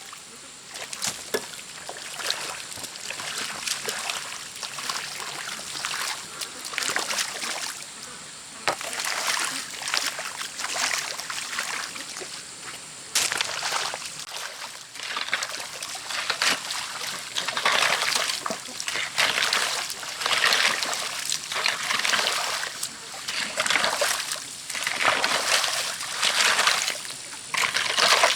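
Water splashing and sloshing in a flooded rice paddy: repeated splashes roughly once a second, louder in the second half.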